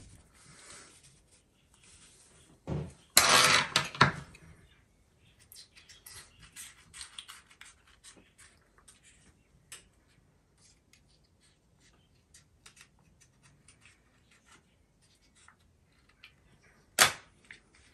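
Paper towel crinkling as it is folded and handled, loudest about three seconds in, then scattered small clicks and scratches as small scissors snip open a leathery ball python egg, with one sharp click near the end.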